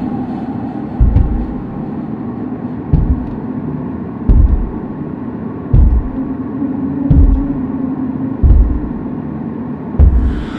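Low, steady rumbling drone with a deep thump about every one and a half seconds, seven in all, like a slow heartbeat.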